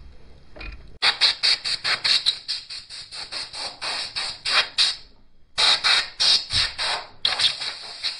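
Rapid, repeated scratchy strokes, about five a second, in three runs broken by short pauses, from hand work on an aluminium scooter engine crankcase.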